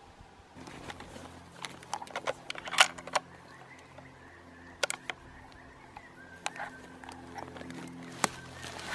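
Scattered sharp snaps and clicks of sticks and stones underfoot in dry bush litter, over a faint steady hum.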